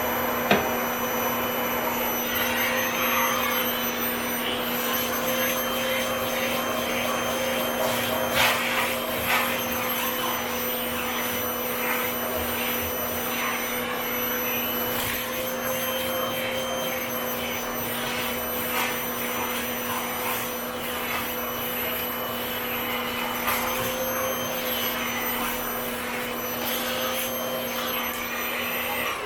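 Vacuum cleaner running steadily with a constant motor hum, with intermittent scraping and rubbing as the nozzle moves over a surface. It switches off right at the end.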